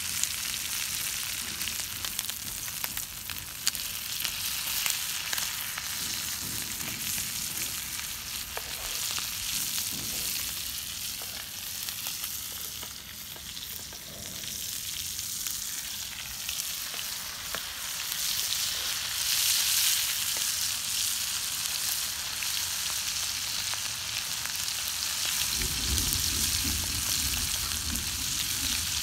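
Trigger fish frying in hot oil in a pan over a wood fire: a steady crackling sizzle, with the scrape of a slotted spatula turning the fish. A low rumble joins in near the end.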